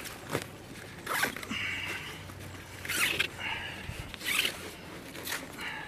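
Zip on a mesh carp retainer sling being worked in several short pulls.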